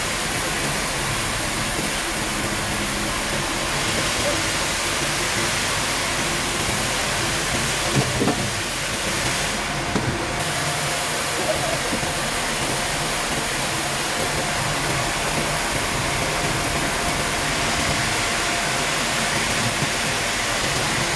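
Steady mechanical din of sawmill machinery with a constant hiss, and a couple of short knocks about eight and ten seconds in.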